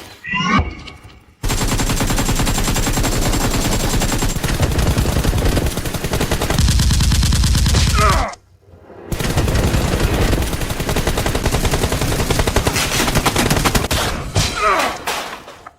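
Rapid automatic gunfire, in two long volleys with a short break about eight seconds in. A brief voice cry comes near the start and another near the end.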